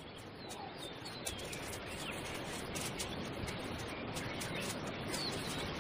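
Outdoor field ambience: a steady hiss with faint, scattered bird chirps.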